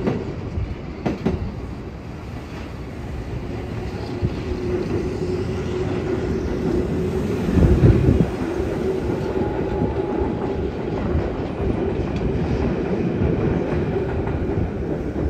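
Tokyo Metro Marunouchi Line train, a red 2000 series set, running past over its river bridge: steady wheel-and-track rumble with a motor hum. There is a brief louder rumble about halfway through.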